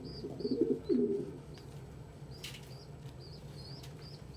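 Pigeon cooing for about the first second, over a steady run of short, high chirps, with one brief sharp flutter a little after two seconds in.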